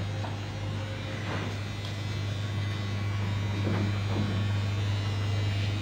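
A running machine's motor gives a steady, even low hum.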